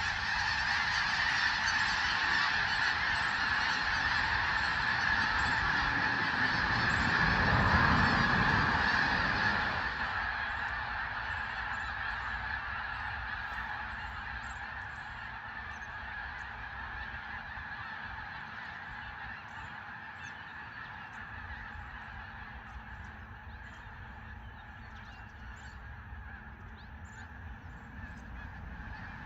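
A dense chorus of a large flock of geese honking continuously. It is loudest for the first ten seconds, then gradually fades.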